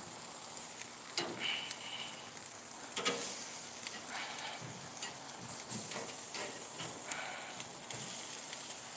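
Meat sizzling on a charcoal grill: a steady hiss with a few sharp pops and crackles, about a second in and again around three seconds, as rendering fat drips onto the hot coals and flares.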